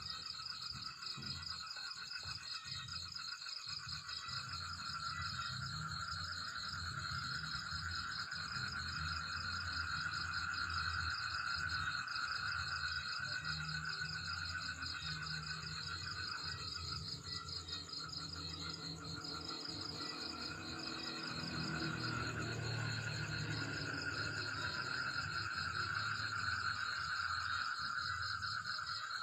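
A steady chorus of night insects, several pitches of fine rapid trilling held without a break, with a faint low hum beneath.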